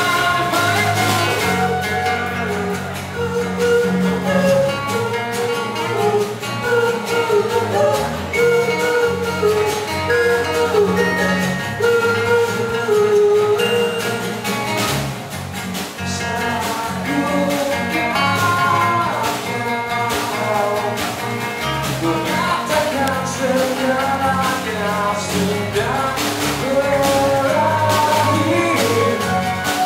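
Live band performing a song: a male voice singing over strummed acoustic guitars, with drums keeping the beat.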